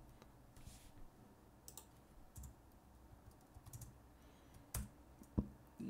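Computer keyboard keys pressed now and then: a handful of separate, faint keystroke clicks, as when stepping through a command-line menu with the arrow keys and Enter.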